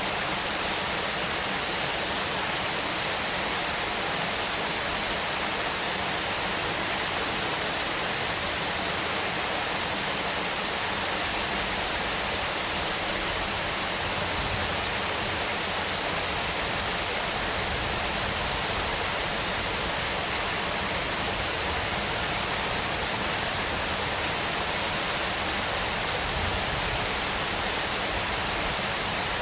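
Waterfall: a steady, even rush of falling water with no break or change.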